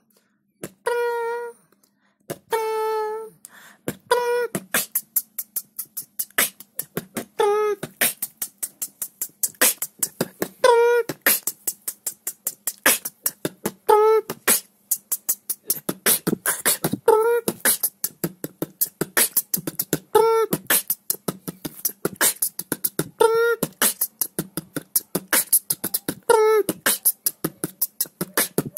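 Beatboxing: a human voice making drum sounds, with clicks, hi-hats and snares in a steady beat and a short hummed note every few seconds. It opens sparse with a few held hummed notes, then builds into a dense run of rapid hi-hats from about eight seconds in.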